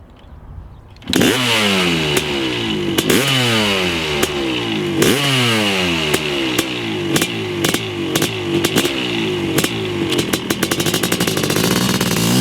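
1995 Honda CR500's single-cylinder two-stroke engine revving hard, coming in suddenly about a second in. The throttle is blipped again and again, each sharp rise in pitch followed by a longer fall as the revs drop. A rapid run of crackling ticks comes near the end.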